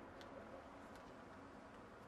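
Near silence: a faint steady background hiss with two faint ticks, about a quarter second and about one second in.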